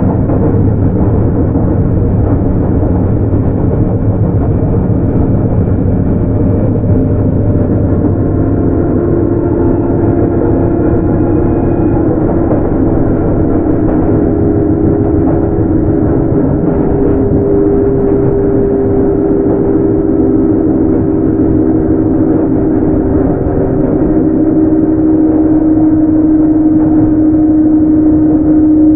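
Sotetsu 8000 series electric train with Hitachi GTO-VVVF control running along the line, heard from inside the car. A loud, steady rumble of wheels on rail carries level humming tones that shift in pitch a few times.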